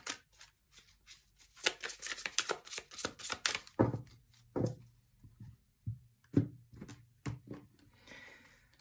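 A deck of tarot cards shuffled by hand: a quick run of card flicks in the first half, then a string of separate soft taps as the cards are handled.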